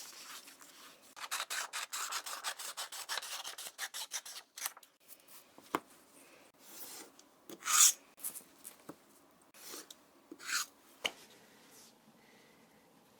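Quick rubbing or scraping strokes, about ten a second, run for three or four seconds. A few separate strokes follow, the loudest about eight seconds in.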